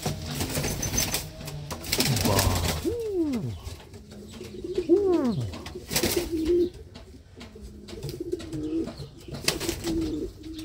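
Male Horseman pigeon cooing at a hen: several low coos that rise and fall in pitch, with scattered clicks and rustles.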